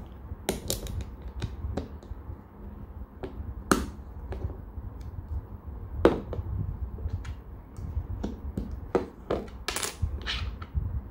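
LEGO plastic bricks clicking and tapping as tiles are pressed onto a LEGO canoe hull and handled on a tabletop: scattered sharp clicks, a louder one about four seconds in and another about six seconds in, and a quick cluster near the end, over a low steady rumble.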